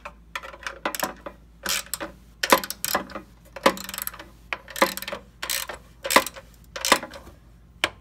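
A ratchet with a 10 mm socket clicking in short, uneven bursts as hex screws are tightened back into the engine body.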